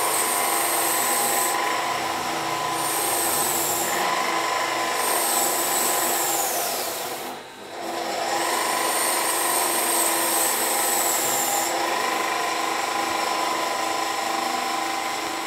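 Bench belt sander running, its abrasive belt rubbing against a strip of abrasion-resistant canvas held to it in an abrasion test. A high whine sits over a steady grinding noise; about halfway through the whine falls and the sound dips briefly before the sanding picks up again.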